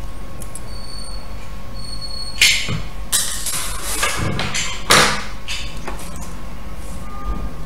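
Hands handling a knitted wool bag and its zipper: a few short rustling scrapes, about two and a half, three and five seconds in, over a steady low background hum.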